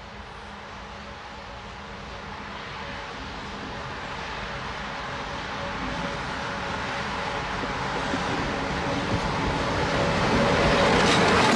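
An approaching train: its rumble and a steady hum grow louder throughout, and the first sharp wheel knocks on the bad rail joint come in near the end.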